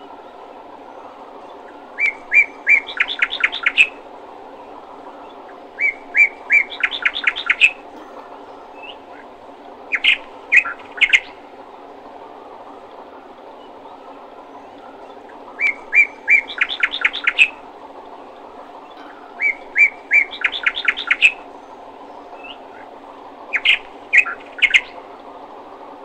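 Bird song: six phrases, each a few separate chirps running into a quick trill, repeated about every four seconds, over a steady low hum.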